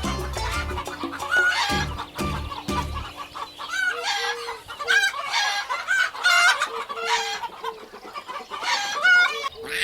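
Chickens clucking in a run of short repeated calls. Background music with a low beat plays under them for the first three seconds or so.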